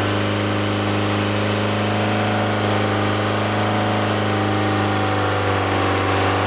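Mercedes E 220 CDI's four-cylinder diesel engine running steadily with the car standing, giving a loud, even drone. This is the humming fault that the mechanics suspect comes from a worn engine or transmission mount.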